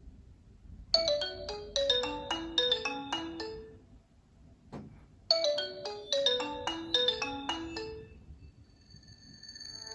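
Nokia 808 PureView ringtone: a short melody of quick pitched notes, played twice with a pause between, and a single click in the pause. Another tone starts to swell in near the end.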